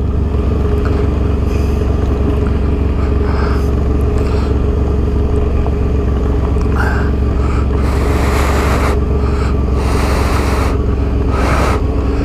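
Suzuki V-Strom 650's V-twin engine running steadily at low revs as the bike rolls along a gravel track. Brief bursts of hiss come and go several times over it.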